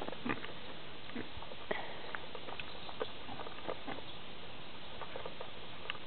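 Pet pig chewing cherries, making irregular short crunches and smacks as it bites through the pits, over a steady hiss.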